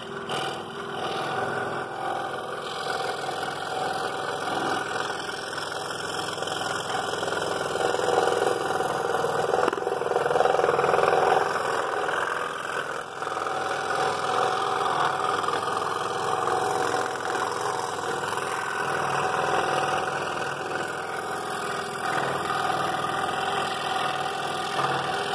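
Scroll saw running steadily, its reciprocating blade cutting along a curved line in a wooden board, the workpiece being fed slowly around a circle.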